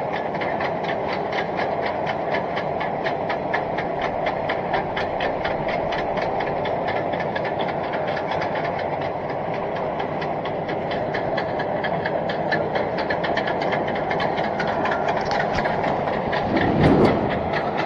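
Hitachi Zaxis 210F amphibious excavator travelling on its pontoon tracks: the engine runs steadily under a rapid, even clatter of the track links.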